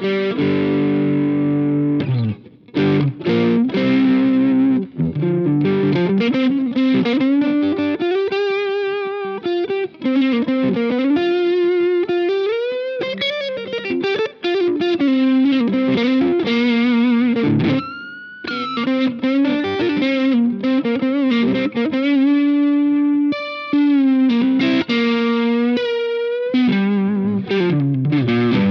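Electric guitar played through a Jeds Peds Wasteman, a Tube Screamer-style overdrive pedal with a clean blend. It plays overdriven single-note lead phrases with string bends and short breaks between phrases.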